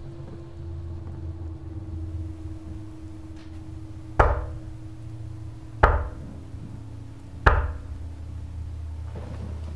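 Three loud, evenly spaced knocks about a second and a half apart, each with a short echoing decay, over a low steady drone.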